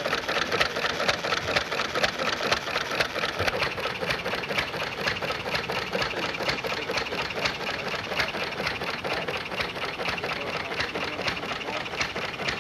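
Old hit-and-miss stationary gas engine running with a fast, steady mechanical clatter.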